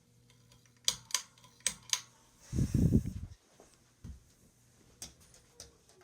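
A ceiling fan's motor hums faintly and steadily, a fan running on a bad capacitor. Scattered sharp clicks sound over it, and a brief low rumble comes about halfway through.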